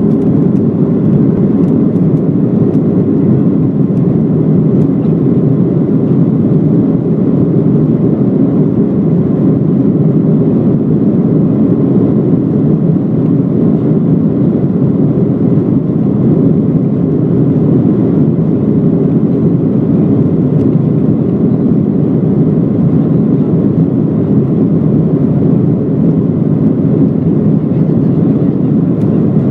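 Boeing 737-800 jet engines running, a loud, steady, low noise that holds level with no rise or fall.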